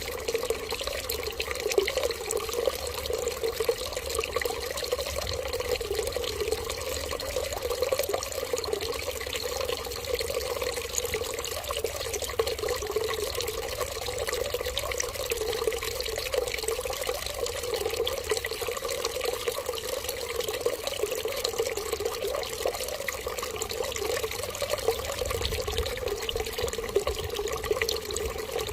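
Water running in a steady, unbroken stream, like a tap left running, with a constant splashing trickle.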